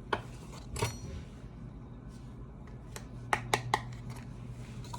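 Kitchen utensils clinking and tapping against a mixing bowl while dry ingredients are measured in: one clink rings briefly about a second in, then a quick run of light taps a little past three seconds.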